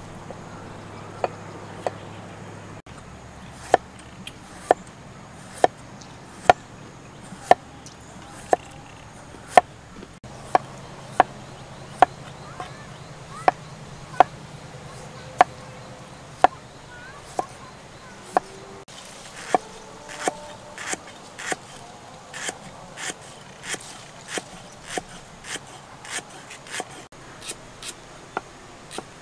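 Kitchen knife chopping vegetables on a round wooden chopping block: slow slices through a carrot, about one knock a second, then a quicker run of chops, two to three a second, in the last third.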